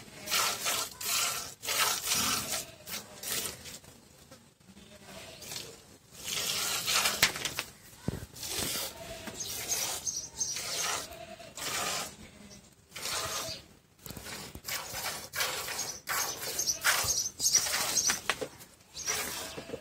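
Cow milked by hand into a plastic bucket: rhythmic squirts of milk hissing into the foamy milk in the bucket, about two a second, in runs broken by short pauses.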